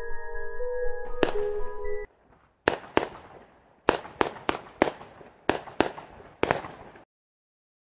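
A string of about ten sharp bangs, each with a short echoing tail, spaced irregularly and stopping abruptly near the end. Soft ambient music with sustained bell-like tones plays under the first bangs and ends about two seconds in.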